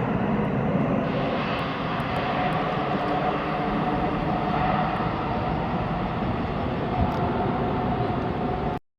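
Jet airliner engines, a steady loud rush with a faint whine over it, cutting off suddenly near the end.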